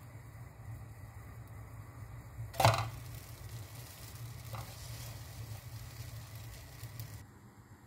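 Dosa frying in a nonstick pan with a faint steady sizzle. A sharp clatter of the spatula and pan comes as the dosa is flipped, a little under three seconds in, and a lighter tap follows about two seconds later. The sizzle cuts off near the end.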